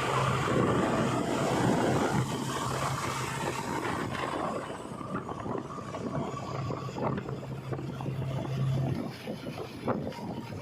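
Heavy diesel machinery engine running with a steady low hum, and a few sharp knocks near the end.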